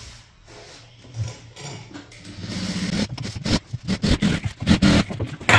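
Sewing machine stitching: after a quieter start, the motor and needle run in a fast, uneven patter of strokes from about halfway through.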